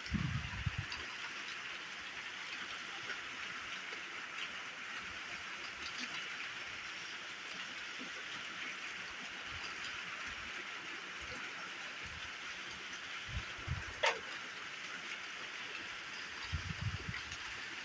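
Steady hiss of monsoon rain falling. A few short low thumps come near the start, twice about three-quarters through and several times near the end, and a quick high-to-low descending whistle sounds about three-quarters through.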